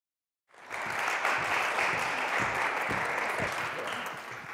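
Audience applauding, starting about half a second in and fading away near the end.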